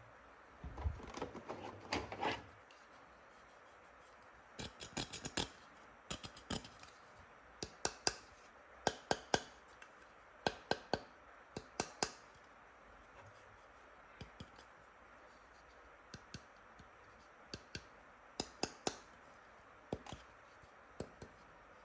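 Plastic toy tools handled and clicked together: irregular sharp clicks and taps, singly and in quick clusters, with a brief rustle of handling about a second in.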